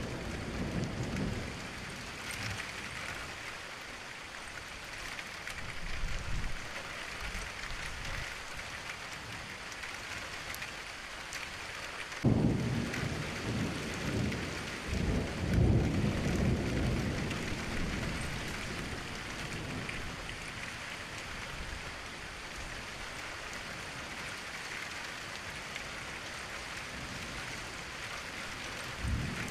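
Thunderstorm: steady rain with rolling thunder. A sudden sharp thunderclap comes about twelve seconds in and rumbles on for several seconds.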